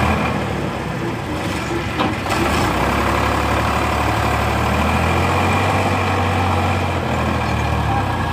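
Diesel farm tractor engine running steadily under load as it pulls a trolley loaded with sand, a low even engine note. A single short knock sounds about two seconds in.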